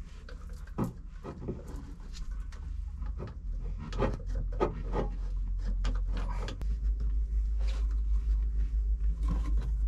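Small metal clicks and scrapes as washers and a nut are fitted by hand onto a through-hull bolt and then turned with a spanner. Underneath is a low rumble that grows stronger about two-thirds of the way in.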